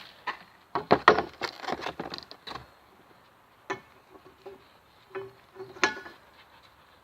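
Jump pole knocking and clattering against its stands as the bar is raised a notch: a quick run of sharp knocks, followed by a couple of single knocks.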